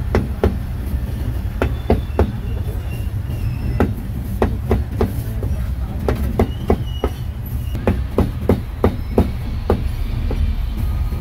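Cleaver chopping roast meat on a chopping board: irregular sharp chops, roughly two a second, over a steady low rumble.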